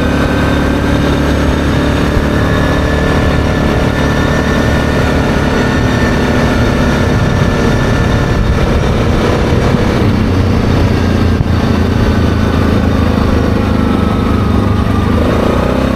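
ATV engine running steadily at cruising speed, heard from the rider's seat, with tyre and wind noise from riding a gravel road; the engine note changes slightly about ten seconds in.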